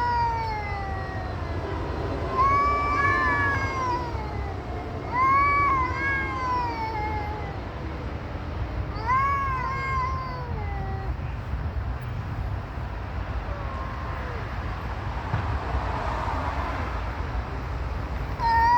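A cat meowing: four long, drawn-out meows that rise and fall in pitch, spaced a few seconds apart, then stopping for the second half.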